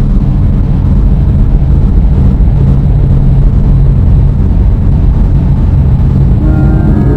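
Loud, harsh, steady low rumbling drone that starts abruptly, used as a noise sound effect. Organ notes come in over it near the end.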